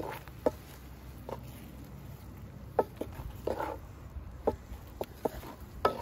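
Wooden spatula stirring steak pieces in a steaming cream sauce in a wide metal pan: irregular knocks of wood against the pan and meat, with short sloshing swells, over a steady low rumble.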